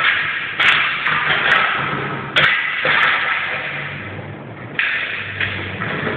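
A dog playing with a ball against a wall and a smooth floor: irregular knocks and thumps, each followed by a short scraping sound, about half a dozen in a few seconds.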